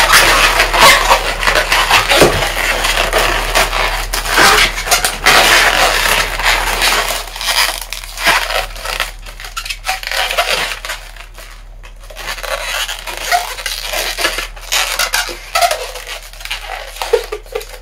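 Latex modelling balloons squeaking and rubbing against each other as they are pushed, tucked and twisted into place. The squeaking is dense for the first several seconds, then turns quieter and more scattered.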